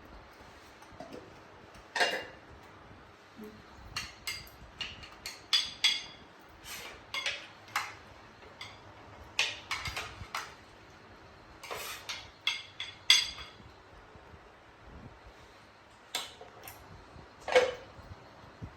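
Hard objects knocked together: a run of about twenty irregular sharp clinks, like crockery or metal utensils, several with a short ring, with a lull about two-thirds of the way through before a few more.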